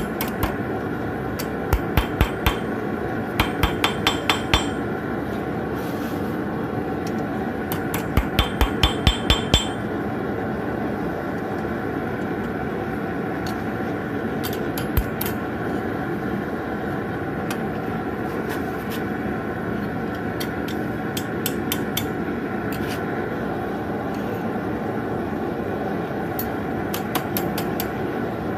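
Ball-peen hammer striking a forged steel nail blade on an anvil: quick runs of ringing blows (about four, then seven, then eight in the first ten seconds), followed by scattered lighter taps. A steady rushing noise runs underneath.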